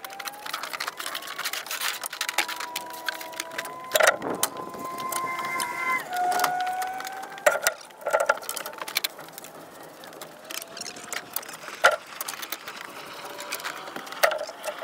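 Oak lumber boards and thin wooden stacking sticks knocking and clattering as they are lifted and shifted off a drying stack, with a few sharp wood-on-wood knocks standing out.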